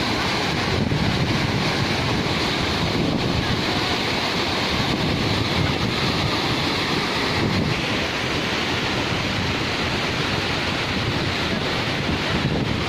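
Waterfall pouring: a steady rush of falling water, with wind buffeting the microphone.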